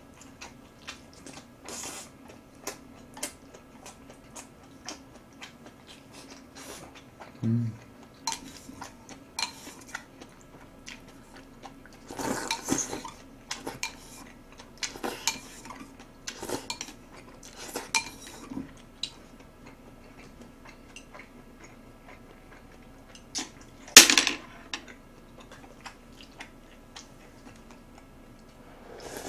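Metal chopsticks clicking and scraping against heavy black bowls and a plate, with scattered clinks and one louder sharp knock about two-thirds of the way through, over a faint steady hum.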